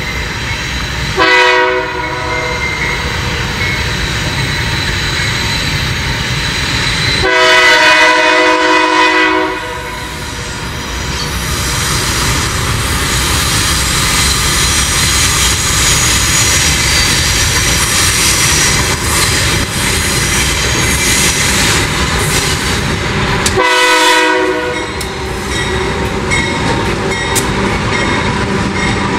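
Diesel freight locomotive horn sounding three times: a short blast about a second in, a long blast of about two seconds, and a shorter blast near the end. Under the horn is the steady rumble of the approaching freight train's engines and wheels on the rails.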